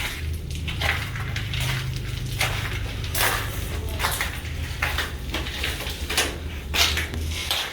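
Footsteps crunching over debris, an irregular string of sharp crunches about one or two a second, over a steady low hum.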